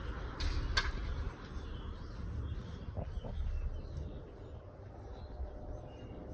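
Outdoor backyard ambience: a steady low rumble of wind on the microphone, two sharp clicks within the first second, and faint bird chirps.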